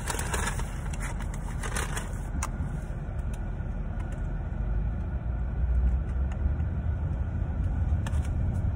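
Car engine and road rumble heard from inside the cabin, a steady low drone, with a few light clicks in the first two seconds or so.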